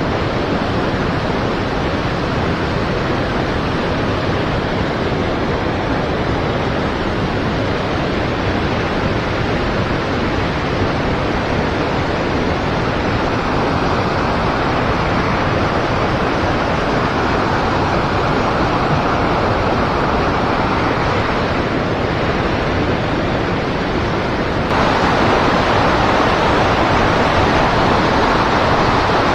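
River water rushing steadily around a wading angler, a constant noise that grows louder about three-quarters of the way through.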